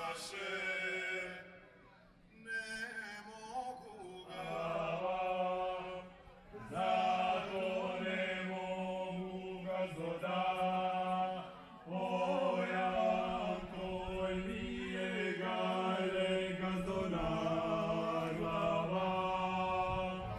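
Four young male voices singing a folk song unaccompanied, in harmony. The song moves in phrases of long held notes over a steady low drone. The singing drops away briefly between phrases, about 2, 6 and 12 seconds in.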